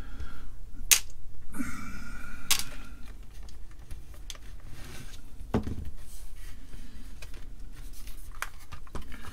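Clicks, taps and scraping from a screwdriver and hands working on a cassette recorder's plastic case and tape mechanism, with sharp clicks about one second, two and a half seconds and five and a half seconds in, and a short squeaky scrape around two seconds in.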